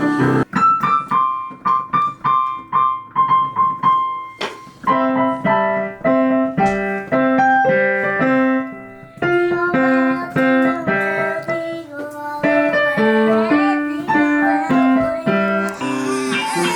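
Background piano music: a light repeated high phrase, then a fuller run of chords and melody notes from about four seconds in.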